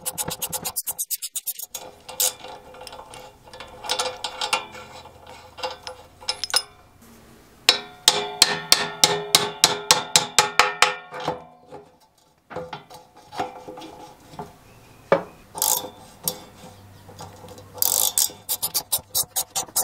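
Ratchet wrench clicking in fast runs of about seven clicks a second as it turns the screw of a small jaw puller drawing a rusted shaft out of a mower's arm. Between the runs come scattered single knocks and clinks of steel parts being handled.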